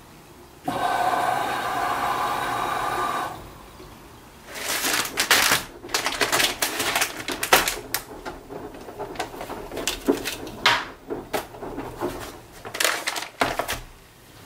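A steady tone with several pitches held together for about two and a half seconds, then clear plastic snack wrappers crinkling and crackling in a run of sharp, irregular bursts.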